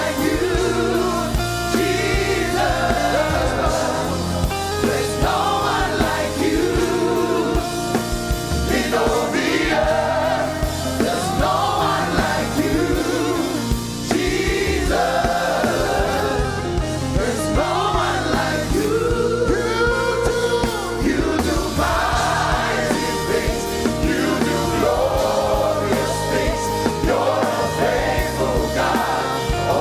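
Gospel worship song: voices singing over a steady band accompaniment.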